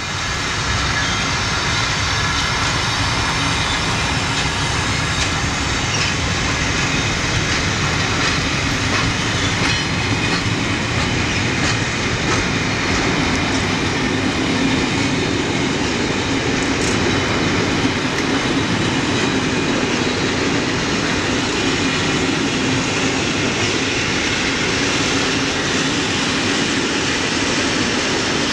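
Freight train of loaded container wagons rolling steadily past, with the wheels clicking irregularly over the rail joints and a thin metallic squeal from the wheels running through.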